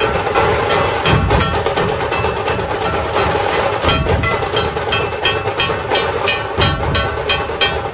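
Dhol-tasha troupe playing a fast, steady rhythm: a dense clatter of sharp strikes and ringing metallic hits over deep dhol drum beats.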